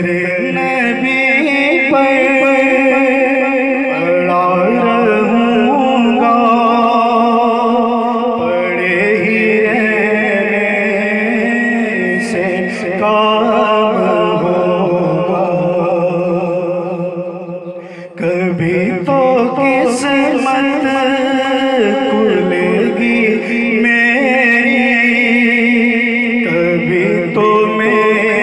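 A man singing a naat solo, drawing out long, wavering held notes. He breaks off briefly for breath about two-thirds of the way through, then sings on.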